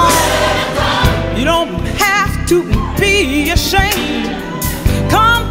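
Live gospel song: a woman lead singer's wordless, wavering ad-lib with heavy vibrato over organ, piano and drums, with the choir behind her.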